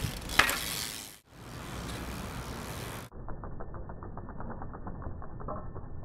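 A bicycle rolling out of a bunny hop on asphalt, with two sharp knocks in the first half-second. After a cut about three seconds in, a duller track carries the bike's rear freewheel hub ticking rapidly and evenly as it coasts.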